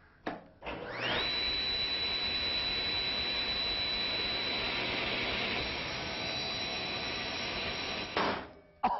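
Table saw motor starting with a rising whine, then running steadily with a high whine. Near the end it cuts off suddenly as the saw's skin-sensing safety brake fires on contact with a hot dog, stopping the blade and dropping it below the table.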